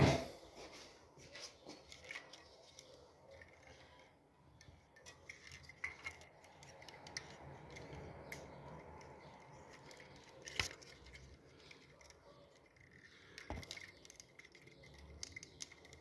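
Plastic wall-switch mechanisms and their wires being handled: scattered small clicks and rattles, with a few sharper clicks at the start, about ten seconds in and near the end.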